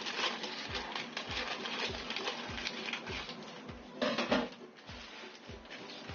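Scissors cutting through sheets of baking paper, with crisp rustling and crinkling of the paper and a louder crinkle about four seconds in. A steady soft beat of background music plays underneath.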